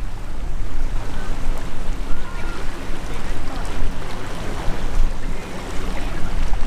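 Wind buffeting the microphone: an uneven low rumble over a steady rush of open-air and water noise.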